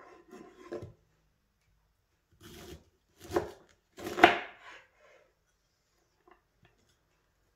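Knife slicing through a raw cauliflower onto a bamboo cutting board: several cutting strokes in the first five seconds, the loudest about four seconds in, then a few faint ticks.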